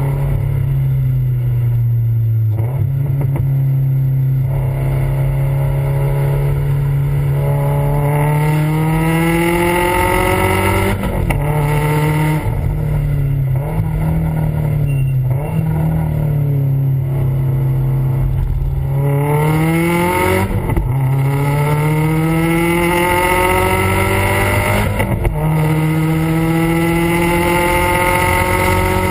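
Subaru WRX STI's turbocharged flat-four running hard through its aftermarket exhaust, heard right at the tailpipe. The note climbs and falls in pitch with engine speed, broken three times by short gaps.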